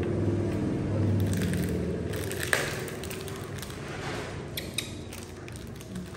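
Plastic lid and scoop of a powdered milk formula tin being handled: a sharp click about two and a half seconds in and a few small clicks and scrapes later as the powder is scooped. A low steady hum sounds under the first two seconds.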